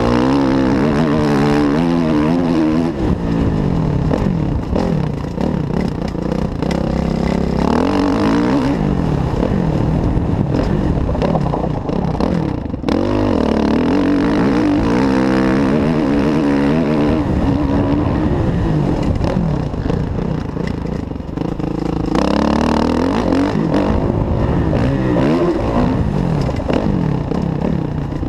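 Kawasaki KX450F's single-cylinder four-stroke engine under hard riding on a motocross track, its pitch rising and falling over and over as the throttle is opened and closed through the gears.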